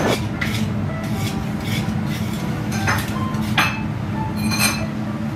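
Dishes and cutlery clinking in short, scattered knocks over a steady background hum.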